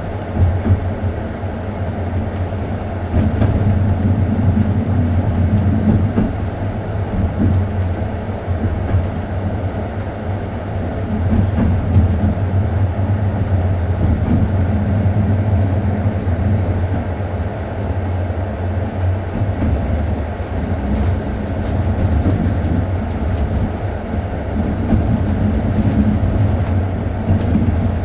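Passenger train coach rolling along the track: a steady low rumble of wheels on rail, with a few faint clicks.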